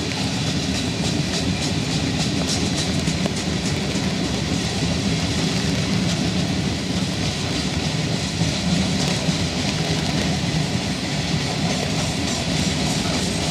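Lake State Railway freight train cars rolling past, steel wheels clicking steadily over the rail joints with a continuous rumble.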